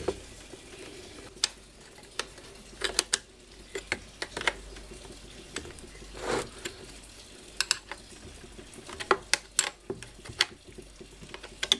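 Irregular clicks, clinks and a brief scrape of plastic pump parts and a metal wrench being handled as the water-outlet fitting is fitted onto a Hitachi automatic water pump's housing.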